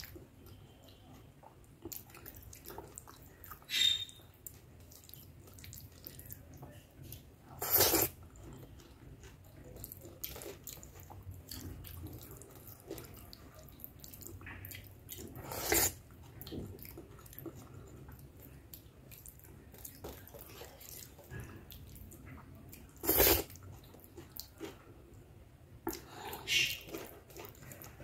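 Wet, sticky squelching of khichdi being mashed and scooped by hand on a steel plate, along with mouth sounds of eating it: chewing and lip smacking. A few sharp, louder smacks stand out several seconds apart.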